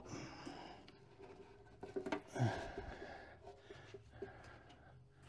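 Faint hand-handling of a power quarter-window motor and regulator assembly being worked onto its track rollers: light rustling, small clicks of metal parts and one louder scrape about two and a half seconds in, over a low steady hum.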